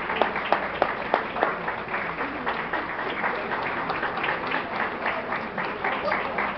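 Audience applause in a large hall: many people clapping steadily, with sharp individual claps standing out.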